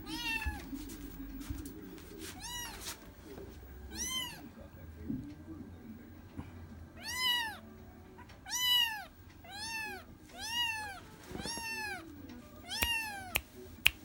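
Kitten mewing over and over, about nine high-pitched meows, each rising and then falling in pitch, coming closer together in the second half. A sharp click sounds near the end.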